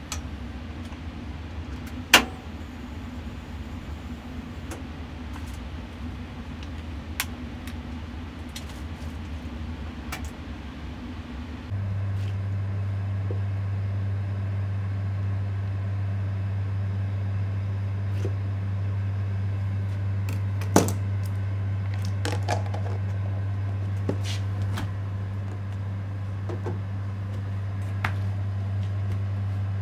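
A steady low hum of kitchen machinery, louder from about twelve seconds in. A sharp clack comes about two seconds in, and later there are scattered light taps of a knife on a wooden cutting board.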